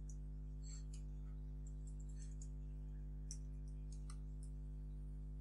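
Typing on a computer keyboard: scattered light key clicks over a steady low electrical hum.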